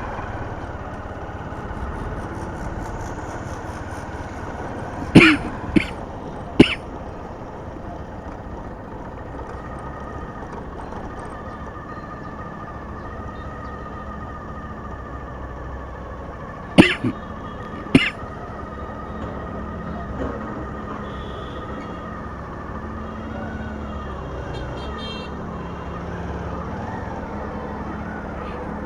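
Steady traffic noise with a faint steady tone, broken by two clusters of loud, short sharp sounds, three at a time, about five seconds in and again about seventeen seconds in.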